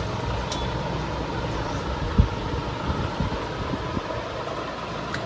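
Steady electrical hum and noise from a voltage stabilizer under bench test, with a sharp click about half a second in and a few dull knocks, the loudest a little after two seconds.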